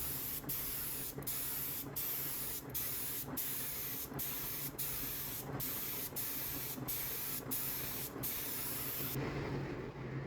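Spray hiss in repeated passes, broken by short gaps roughly every 0.7 seconds, stopping abruptly about nine seconds in. This is typical of a finish being sprayed onto wood.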